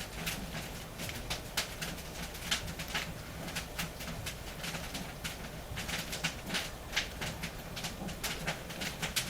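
Wood fire in a traditional wood-fired kiln crackling and popping irregularly, over a low steady rumble.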